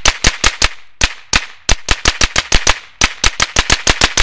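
Grand Power Stribog SP9A3G 9mm carbine firing rapid semi-automatic shots, several a second, in quick strings with brief pauses about one and three seconds in. The gun is cycling without stoppages from a KCI 50-round drum magazine.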